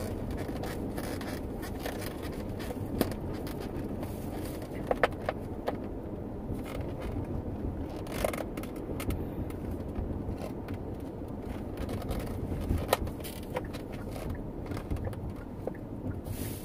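Steady road and engine noise inside a moving car's cabin, with a few scattered short clicks and scrapes.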